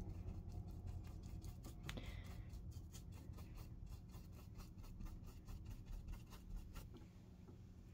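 Thin paintbrush dabbing acrylic paint onto a canvas: a run of faint short scratchy taps, several a second, over a low steady hum.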